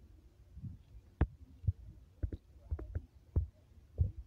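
Wind buffeting the microphone: a low rumble broken by irregular thudding pops, several a second at times.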